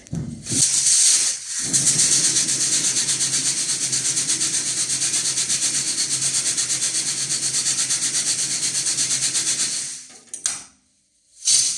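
Shock-type sparkle machine shaking its load, a fast, even rattle with a low motor hum that starts about half a second in and stops near the end. Two short knocks follow as it comes to rest.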